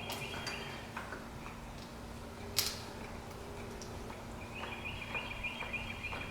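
John Deere hand-lever grease gun being worked on a mini skid steer's grease fittings. Scattered light clicks, one sharp click about two and a half seconds in, and a run of quick high chirps near the end.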